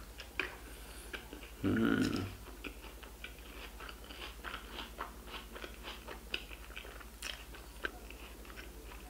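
Close-up eating sounds of a man chewing a mouthful of a large bacon-and-cheddar burger: many small wet mouth clicks and smacks throughout. A short voiced hum comes about two seconds in.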